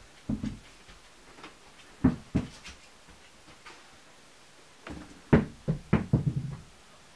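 Short, sharp knocks and thumps in small clusters: one near the start, two quick ones about two seconds in, and a run of several between five and six and a half seconds in.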